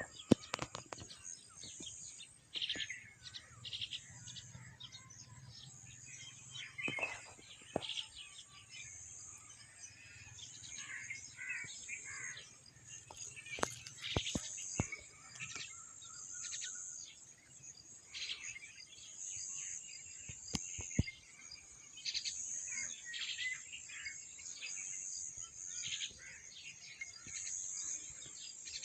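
Several wild birds chirping and singing in overlapping short calls and trills, with repeated high-pitched trills over the top.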